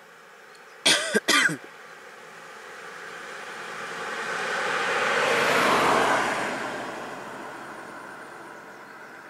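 A loud, brief cry in about three quick pulses falling in pitch, about a second in. Then a road vehicle passes close by, its noise swelling to a peak a little after the middle and fading away.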